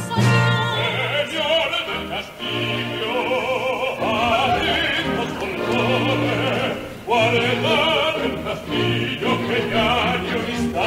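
Zarzuela music: orchestra with operatic singing, the voices held in long notes with wide vibrato, in phrases with short breaks.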